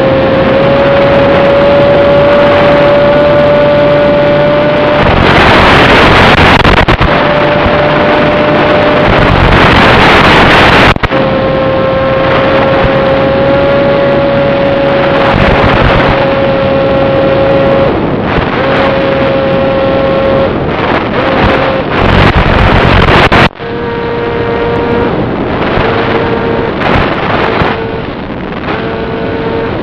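Brushless outrunner motor and two-blade slow-fly propeller of an FPV model plane whining steadily in flight, heard from on board. Loud gusts of wind noise over the microphone cut in several times and drown the whine for a second or two. For the last few seconds the whine is a little lower and comes in short pieces.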